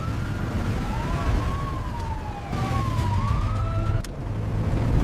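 Emergency vehicle sirens wailing, two overlapping tones slowly rising and falling in pitch, over a steady low engine rumble.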